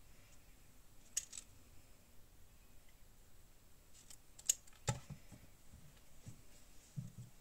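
Light handling of paper and craft supplies on a journal: a sharp click about a second in, two more around four and a half to five seconds, then a few soft low taps.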